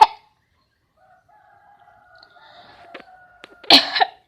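Coughs: the tail of one at the very start and a loud cough near the end. Between them, a faint drawn-out call.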